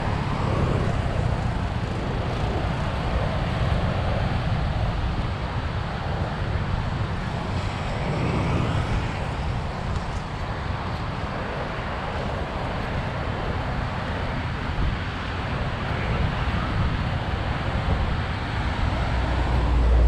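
Steady outdoor roadside ambience: a continuous low rumble and hiss of traffic along a beachfront avenue.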